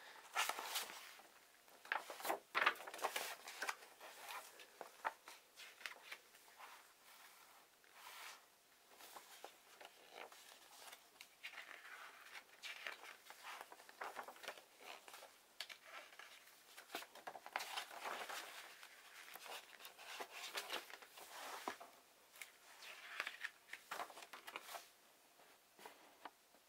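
Paper pages of a printed booklet being turned and handled: irregular rustling and crinkling, coming in scattered bursts with short quieter gaps between.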